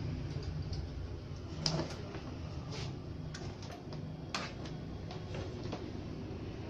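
Scattered clicks and light knocks from hands pressing the front-panel buttons of a Sony VCD mini hi-fi component and handling a cable, over a steady low hum. The system has power but no sound output, so no audio comes from it.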